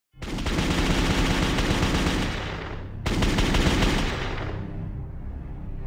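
Two long bursts of rapid automatic gunfire as a sound effect, the first starting suddenly and the second about three seconds in, each tailing off. A quiet music bed comes in under the end.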